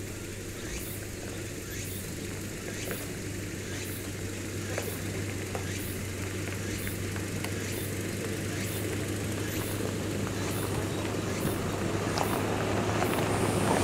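Toyota Hilux Surf SUV driving slowly up a gravel track towards the listener, a steady low engine hum growing louder as it comes nearer.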